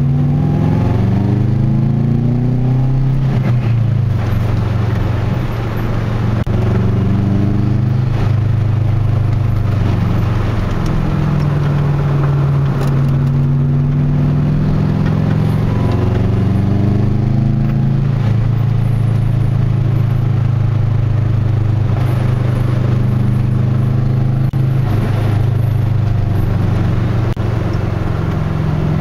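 Subaru WRX turbocharged flat-four through an aftermarket catback exhaust, heard from inside the cabin while driving. The engine note climbs under acceleration several times, dropping back in between.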